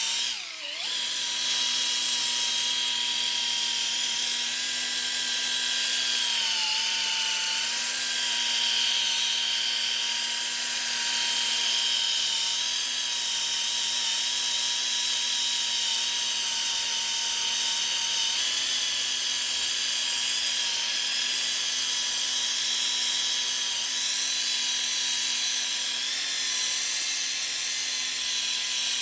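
Electric buffer/polisher running steadily, a constant motor whine as it buffs out wet-sanded car paint. It drops out briefly about half a second in, and its pitch sags for a moment around seven seconds in.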